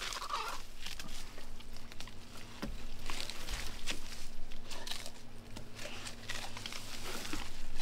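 Light rustling and crackling of cattail stalks and leaves being handled, with scattered small clicks and snaps.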